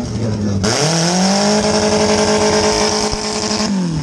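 Compact demolition derby car's engine heard from inside the stripped cabin, revved up sharply about half a second in, held at high revs for about three seconds, then let back down near the end.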